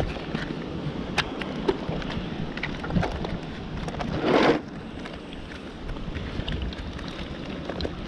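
Wind rumbling on the microphone, with scattered small clicks and rustles of wet fish being handled in a plastic bucket. About four seconds in comes a brief, louder rush of noise.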